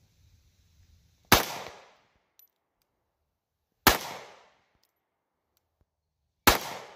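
.380 ACP micro-compact pistol firing three shots of 90-grain ammunition, about two and a half seconds apart. Each shot is a sharp crack with a short echoing tail.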